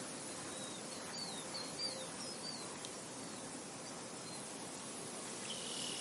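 Outdoor ambience of a steady wind hiss, with a quick series of short, high bird chirps that each fall in pitch about one to three seconds in and one more chirp near the end.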